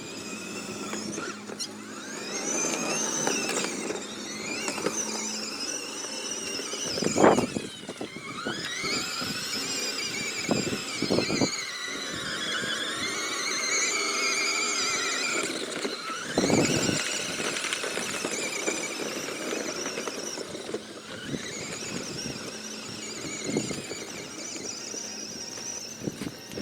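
Small electric ATV's motor whining high, its pitch rising and falling as it speeds up and slows, with a few dull thumps.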